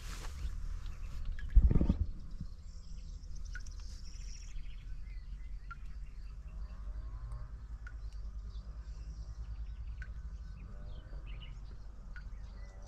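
Insects chirping in short repeated bursts over a steady low rumble, with one loud knock about a second and a half in.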